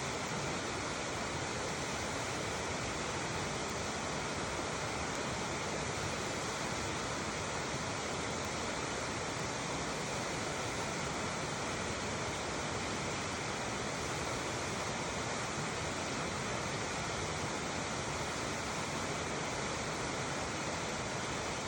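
A shallow stream babbling steadily over stones, an even rushing of water.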